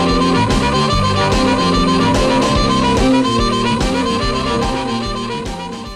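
Instrumental background music with a steady beat, fading down near the end.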